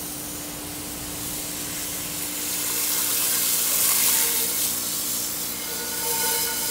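Water spraying from a hose, hissing as it rinses a cast iron Dutch oven pulled from an electrolysis bath; the spray grows louder about two seconds in.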